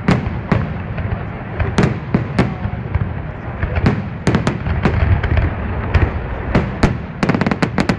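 Aerial firework shells bursting in quick, irregular succession: sharp bangs over a continuous low rumble, coming thicker and faster near the end.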